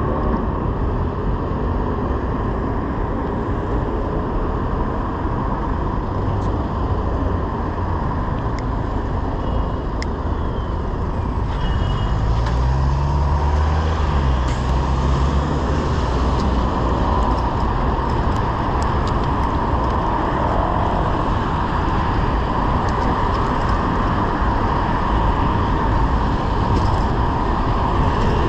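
Steady city traffic noise heard from a bicycle. A city bus's engine passes close by about halfway through, its note rising and then falling away.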